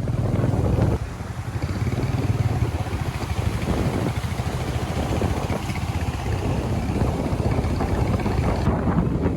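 Motorcycle engine running with a steady low pulsing; the level dips briefly about a second in, then picks up again.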